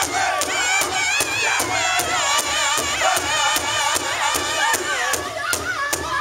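Northern-style powwow drum group: several men striking one large hide-headed drum in unison with a steady, fast beat while singing together in high, wavering voices.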